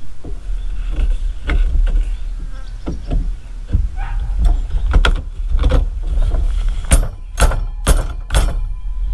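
Parts of a wheel hoe being handled and knocked together during assembly: low rumbling handling noise and scattered clicks, then four sharp knocks about two a second apart near the end.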